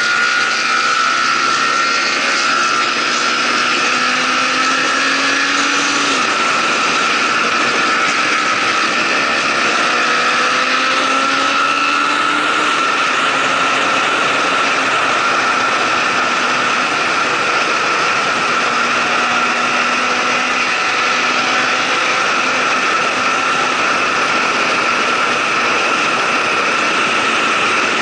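Motorcycle running at a steady highway cruise, its engine note under heavy wind rush on the microphone. In the first few seconds some engine notes slide up and down in pitch.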